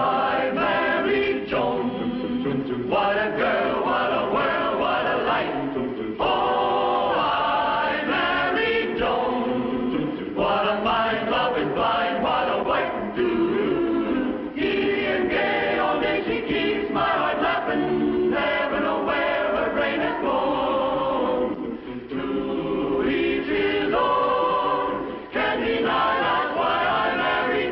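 Choir singing a television sitcom's opening theme song in phrases with short breaks between them.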